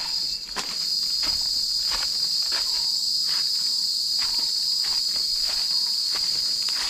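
Cicadas singing in a steady, high-pitched chorus, with the footsteps of someone walking through it at about one and a half steps a second.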